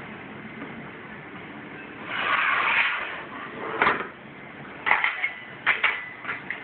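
Aluminium screen-printing frame and its angle bars being handled on a worktable: a scraping slide about two seconds in, then a knock, followed by a quick run of sharp metallic clicks and knocks near the end.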